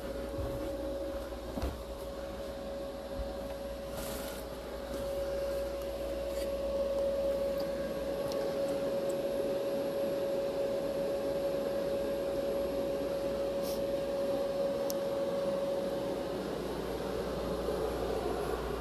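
Steady hum of a running appliance motor with one held whining tone, louder through the middle and easing off near the end. A few faint clicks sound over it.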